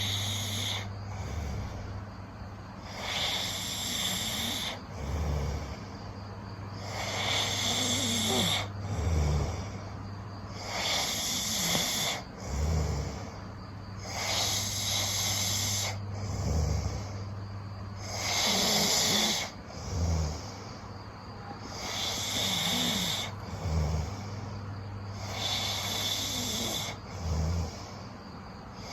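A person snoring heavily in deep sleep, one loud snore about every four seconds, over a steady low hum.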